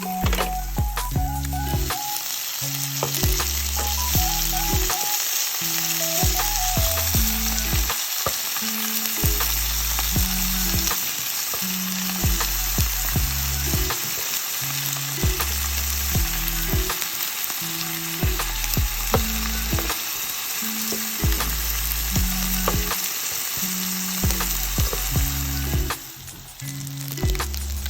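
Meat and vegetables sizzling on a tabletop grill, a dense hiss that swells about two seconds in and drops away near the end. Background music with a bass line runs underneath.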